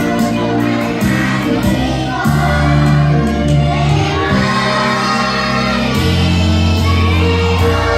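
A song with a group of voices singing together over instrumental accompaniment.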